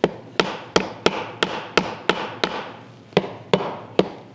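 Rubber mallet tapping window glass down into its frame channel, steady light blows about three a second with a short pause past the middle; the glass is going down slowly into the channel.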